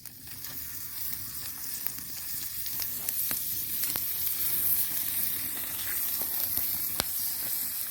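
Garlic butter sizzling in a pan over an open fire: a steady frying hiss with a few sharp pops.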